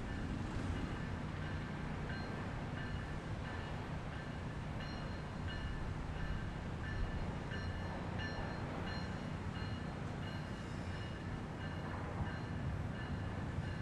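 Electronic railroad crossing bells, a GS Type 2 and a Siemens High Tone E-Bell, dinging over and over while the crossing is active, over the steady low rumble of an approaching Tri-Rail commuter train.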